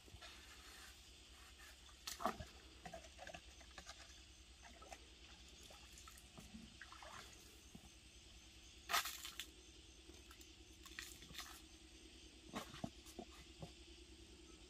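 Quiet scattered rustles and light knocks, like hands handling leaves, sticks or gear, the sharpest about two seconds in and again about nine seconds in, over a low steady hum.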